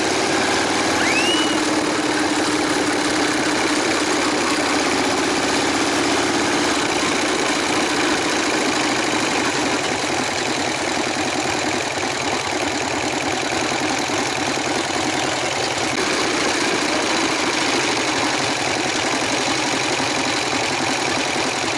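Harley-Davidson Sportster V-twin engine running steadily on the move, under a constant rush of wind and road noise.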